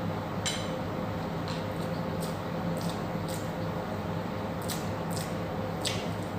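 Close-miked eating sounds: wet chewing and mouth smacks, with about eight short, sharp clicks spread through, over a steady low hum.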